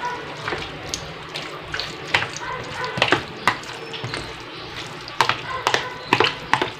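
A spoon stirring creamy, mayonnaise-dressed macaroni salad in a plastic tub: wet squelching of the coated pasta with irregular clicks and scrapes of the spoon against the tub.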